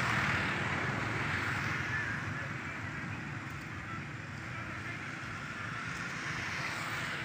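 Steady outdoor background noise: a dull rumble under an even rushing hiss, easing slightly after about two seconds.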